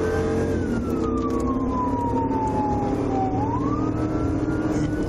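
Police siren on a slow wail: its pitch falls over about three seconds, then climbs again near the end. It sits over the steady engine and road noise of a patrol car in pursuit.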